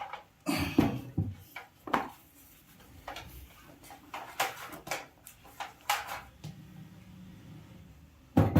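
Objects being handled: a loud knock about half a second in, then a string of short clicks and knocks, and another loud knock near the end.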